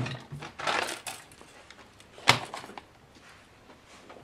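Handling noises of small objects being worked by hand: a rustling clatter, then one sharp knock a little past two seconds in, followed by quieter small sounds.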